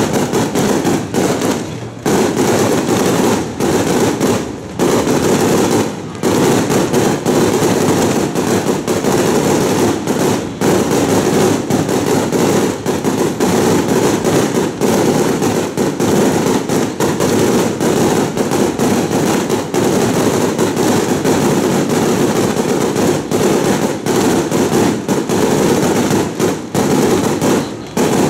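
A long string of firecrackers going off in a loud, dense crackle, with a few brief gaps.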